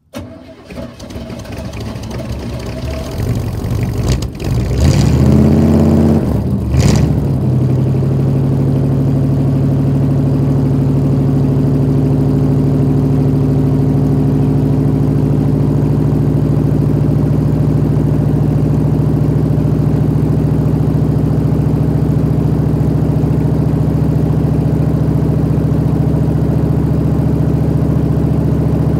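1986 Chevy C-10 pickup's engine cold-started: it cranks over for about four seconds, catches and revs up and back down, blips once more, then settles into a steady idle.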